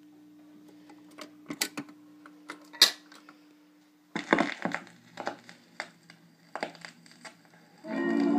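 A 1956 RCA 7HF-45 45-rpm record changer being started: sharp clicks as its control is worked, over a faint steady hum. From about four seconds in comes a run of mechanical clunks and clicks as the changer cycles, and the record starts playing near the end.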